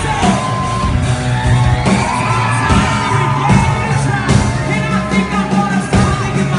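Live pop-rock band playing with a male lead vocalist singing into a microphone, heard loud from within the audience in a hall, with shouts and whoops from the crowd.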